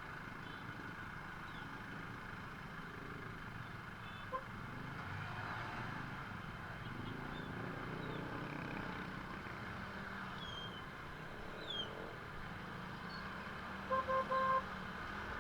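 Steady hum of traffic with a short horn toot about four seconds in and three quick horn beeps near the end.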